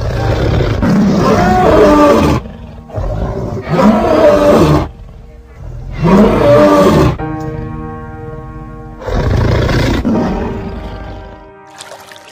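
Lion roaring: four loud roars, each lasting one to two seconds, about every three seconds, with background music audible between them.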